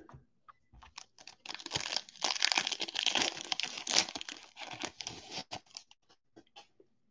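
Foil trading-card pack wrapper being torn open and crinkled, a dense crackling with many sharp snaps that runs for about four seconds and then tapers off into a few scattered crinkles.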